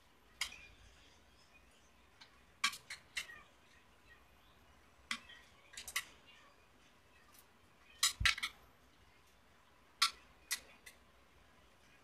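Metal hand tools clinking and tapping against the metal case and parts of a Hyundai Starex automatic transmission during assembly: sharp, separate metallic clinks in small clusters every couple of seconds. The loudest cluster comes about eight seconds in and includes a duller knock.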